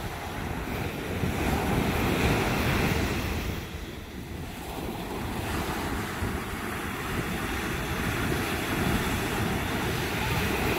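Ocean surf breaking and washing up the beach, with wind rumbling on the microphone. The wash swells over the first few seconds, eases about four seconds in, then builds again and holds steady.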